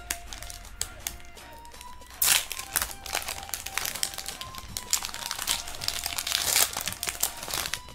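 Foil wrapper of a Pokémon trading-card booster pack crinkling and crackling as it is torn open by hand, with the loudest crackles about two seconds in and again near six seconds.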